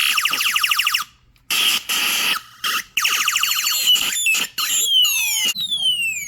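Circuit-bent toy sound-effects gun built around a 'Space War' chip, playing retro video-game space effects through its speaker: rapid trains of short falling laser zaps in several bursts with brief gaps, then a run of longer falling whistles near the end.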